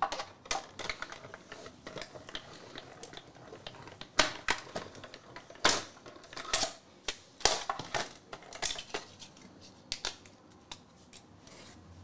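A small die-cutting machine running a plate sandwich with a metal butterfly die and cardstock through, then the plastic cutting plates and die being lifted apart and set down: a run of irregular clicks and knocks, the sharpest in the middle of the stretch.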